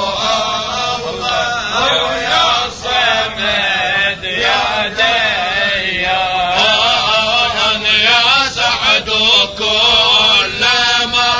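A man chanting an Arabic tahlila, a devotional chant in praise of God, with long, ornamented notes whose pitch winds up and down, broken by short breaths.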